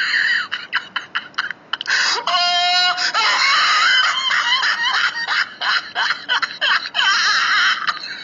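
Laughter sound effect: choppy bursts of laughing, with a single drawn-out high-pitched note about two seconds in, then denser laughing.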